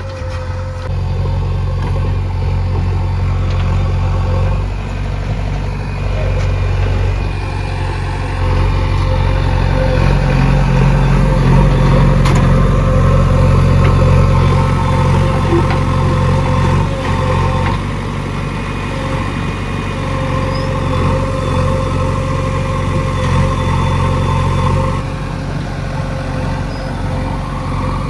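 Heavy vehicle engine running steadily with a low hum, louder for several seconds in the middle.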